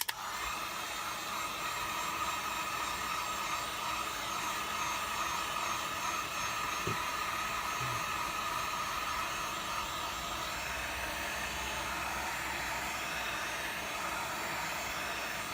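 Handheld hot-air blower switching on and running steadily, a rush of air with a steady whine, heating the phone to soften the screen's adhesive.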